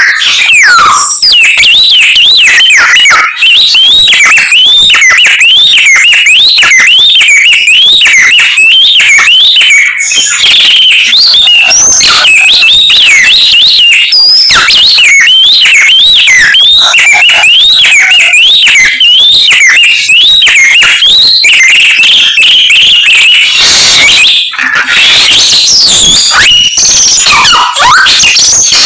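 A samyong songbird singing a loud, nonstop, varied song crammed with mimicked calls of other birds. It runs in quick runs of repeated whistled notes that sweep up and down, several a second, and the phrases change every few seconds.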